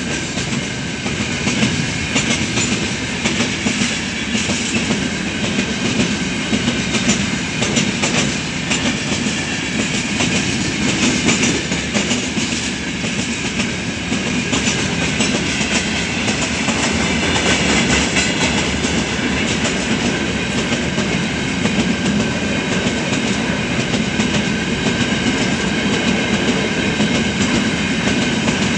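Freight train of open-top gondola wagons rolling steadily past close by: a continuous rumble of wheels on rails with a rapid clickety-clack, and a thin steady high tone running under it.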